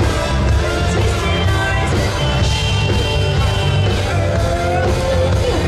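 Music playing, with a steady bass and a melody line.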